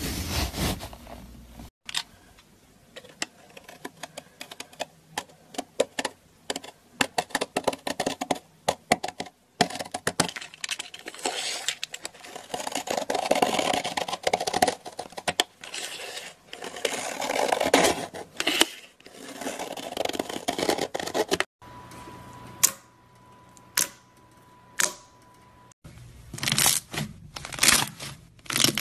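Dense crunching and crackling as a knife cuts through a crumbly block with a flaky crust, its pieces breaking off. About three-quarters of the way through, a steady high tone runs for a few seconds, followed by soft squishing of slime near the end.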